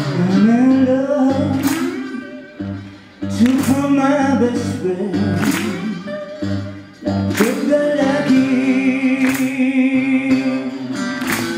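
Slow acoustic blues: a woman's voice sings a gliding line over a steel-bodied resonator guitar, with a sharp percussive accent about every two seconds.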